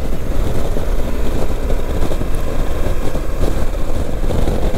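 Steady wind rush and engine noise from a Suzuki V-Strom 800DE, a parallel-twin motorcycle, cruising at highway speed, picked up by the rider's own microphone. The sound is dense and heaviest in the low end, with no single event standing out.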